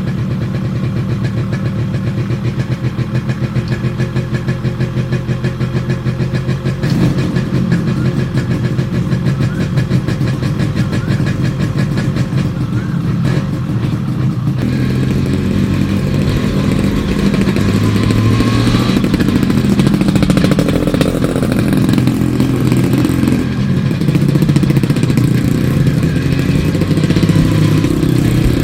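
Yamaha RX 135's two-stroke single-cylinder engine idling with an even pulse, then about seven seconds in pulling away, its revs rising and falling as the motorcycle is ridden.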